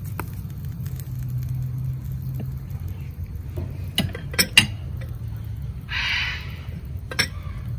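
A macaw squawks once about six seconds in, a single harsh call under a second long, over a steady low hum. A few sharp clicks come a little before and after it.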